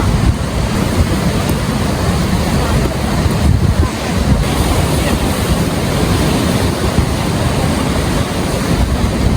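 Ocean surf with heavy wind rumbling and buffeting the microphone, a steady, loud noise.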